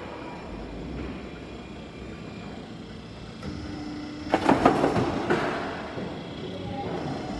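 Roofing-sheet roll forming machine running with a steady mechanical rumble, with a loud burst of clattering knocks about four and a half seconds in.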